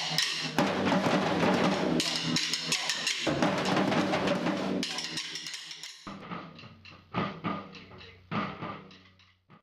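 Drum-led music, dense with drum hits, fading down from about halfway through, with a few last separate hits before it stops near the end.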